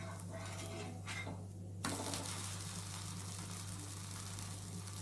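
Dosa sizzling in oil on a hot dosa tawa as it is flipped: a spatula scrapes under it, then about two seconds in a sudden louder, steady sizzle starts as the uncooked side lands on the pan. A steady low hum runs underneath.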